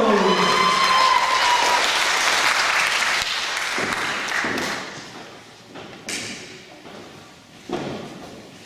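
Entrance music sliding down in pitch and stopping, then audience applause that fades over a few seconds, followed by a few scattered thumps, the sharpest about six seconds in and another near the end.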